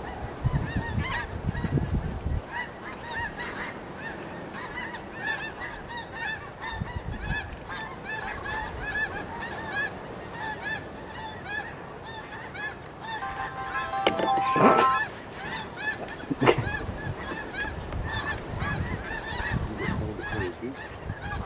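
A flock of greater white-fronted geese (specklebellies) calling continuously overhead: many short, high, yelping calls overlapping, with a louder burst of calling about fourteen seconds in.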